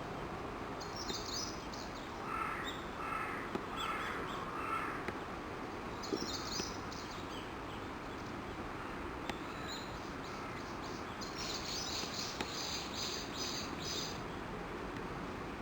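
Birds calling: a crow caws four times early on, while small birds, which the uploader takes for Japanese bush warblers, give rapid series of short high-pitched notes in several bursts, over a steady background hiss.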